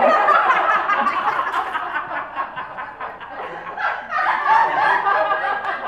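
Audience laughing in a small theatre, in two waves: the first dies down about halfway through and a second swell comes about four seconds in.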